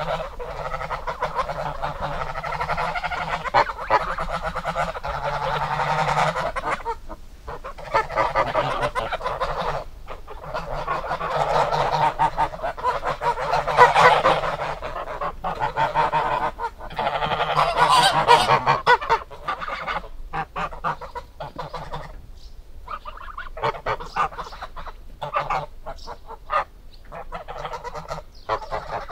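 A flock of geese honking, many calls overlapping densely, then thinning to scattered single honks about two-thirds of the way through.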